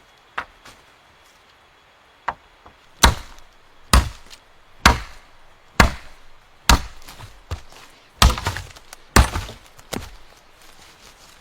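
A series of hard chopping blows, about one a second, each a sharp strike with a short ringing tail. A couple of lighter taps come before them.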